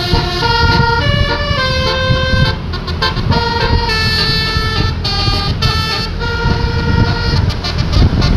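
Bus telolet horn (a basuri multi-tone horn) playing a melody of held notes that step up and down in pitch, over the low rumble of the bus engine.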